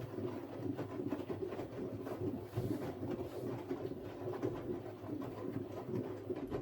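Siemens Siwamat IQ 716 washing machine running with a steady low hum that wavers in level, stopping abruptly near the end.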